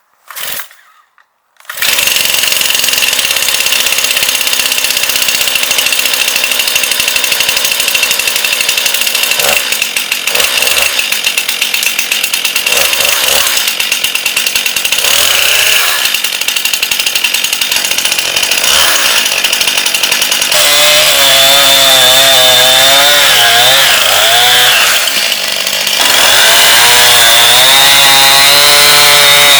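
Stihl MS261 C two-stroke chainsaw on its first cold start at about −20 °C, catching about two seconds in and then running steadily at high speed. From about twenty seconds in the engine pitch rises and falls as it works.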